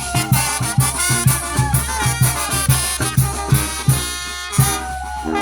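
Live Mexican banda brass band playing upbeat music with a steady fast beat, brass holding chords over it. The beat drops out briefly near the end under a held brass chord.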